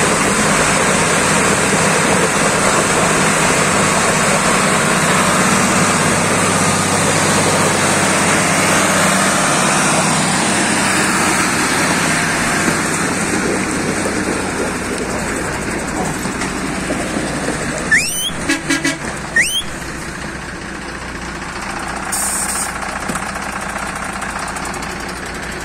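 Belarus MTZ-1221 tractor's six-cylinder diesel engine running loud and steady, hitched to a stuck box truck. It eases off over the last third. A few short rising chirps come about two-thirds of the way through, and a brief hiss a little later.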